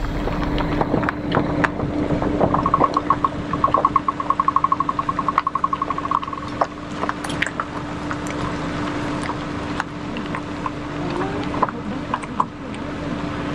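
A vehicle engine idling with a steady hum. A rapid trill of even, high pulses runs from about two to six seconds in, with scattered clicks and knocks throughout.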